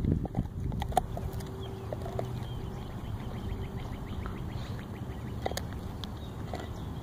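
Dog chewing and gnawing a cedar stick: wood crunching and splintering in scattered small clicks, with a sharp crack about a second in and another later on.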